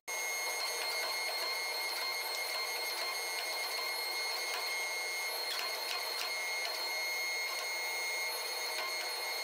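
Hydraulic forging press running while it squeezes hot bloom steel: a steady high whine over a hiss, with a few faint ticks a little past halfway.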